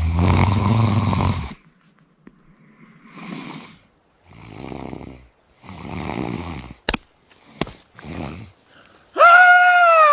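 A person snoring in the character of Bigfoot: one loud rasping snore, then several softer snoring breaths about a second apart. Near the end comes a loud, long pitched call that rises a little, then falls.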